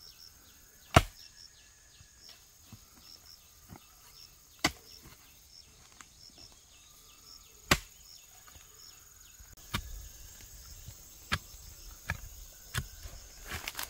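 Sharp chopping strikes of a hand tool into earth and roots, one every one to three seconds and coming faster near the end, while digging out wild yam tubers. Insects chirp faintly and steadily behind.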